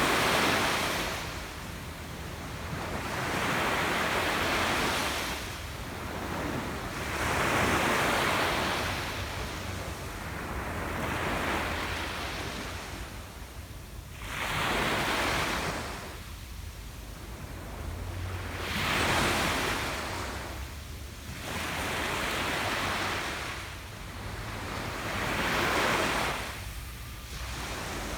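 Ocean surf breaking on a beach, each wave swelling into a rush and washing back, repeating every three to four seconds.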